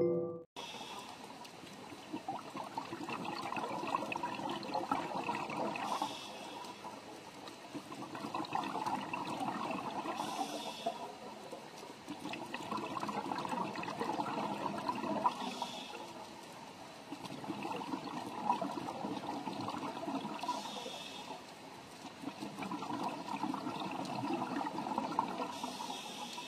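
Underwater water ambience: a bubbling, trickling water sound that swells and fades about every five seconds.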